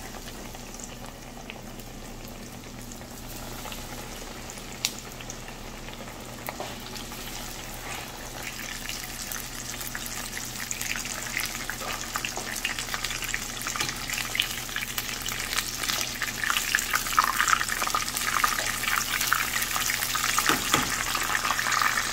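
Breaded veal scallops frying in shallow hot oil in a pan: a crackling sizzle that builds steadily louder through the second half as more pieces fry.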